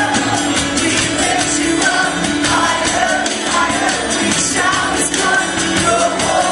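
Live worship music: voices singing over instrumental accompaniment.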